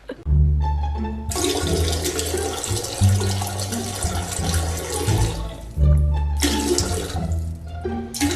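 Background music with a deep bass line moving in steps. A loud rushing noise runs over it from about a second in to about five seconds, and comes back briefly near six seconds.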